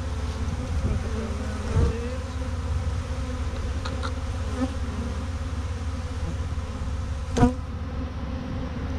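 A honeybee swarm buzzing steadily as a clustered mass. A small knock comes about two seconds in, and a sharper, louder knock about seven and a half seconds in.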